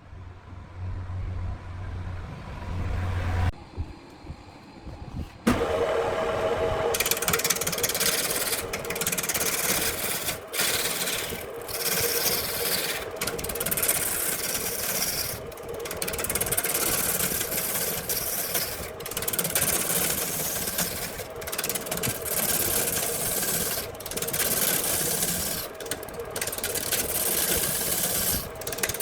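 Handmade wood lathe running, a turning tool scraping and cutting a spinning branch. After a low motor hum, a loud rasping cut starts about five seconds in and goes on with brief breaks every second or two as the tool is lifted and re-set.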